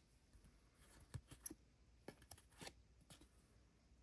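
Faint handling of trading cards: a few soft, scattered clicks and slides of card stock as cards are flipped through and set down.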